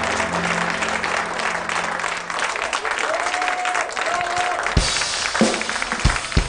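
Audience applauding over the fading last chord of a live band's song. The held music stops about two and a half seconds in, and a few sharp low thumps come in near the end.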